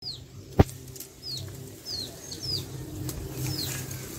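A bird calling repeatedly with short, high chirps that slide downward, about two a second. One sharp crack sounds just over half a second in.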